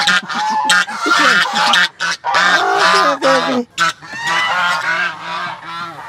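White domestic geese honking loudly at close range, a run of harsh calls one after another that eases off after about four seconds.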